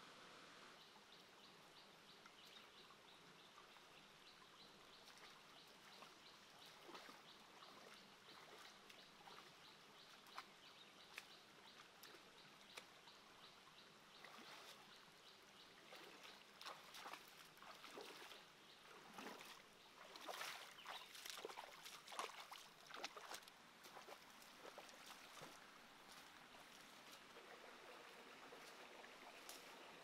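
Faint, steady flow of a shallow stream. In the middle, a run of irregular small splashes from feet wading through shallow water, loudest about two-thirds of the way through.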